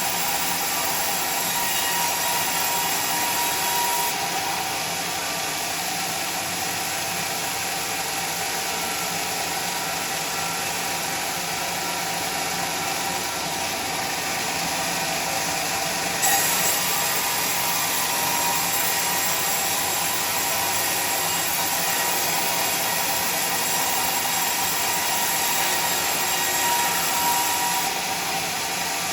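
Sawmill saw and its motor running steadily through teak. A high hiss in the sound drops out about four seconds in, comes back with a brief jolt about halfway, and drops out again near the end.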